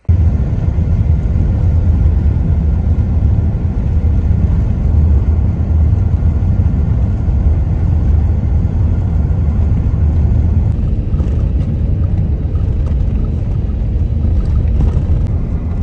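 A car driving along a highway: a steady low rumble of tyres and engine that holds even throughout.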